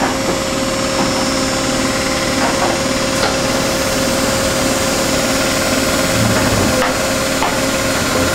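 Industrial machinery running: a steady motor hum with a few light clicks.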